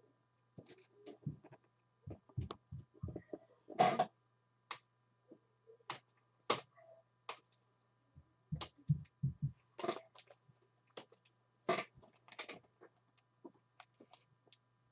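Scattered light clicks and taps with a few soft low knocks, from trading cards and small objects being handled on a tabletop, over a faint steady electrical hum.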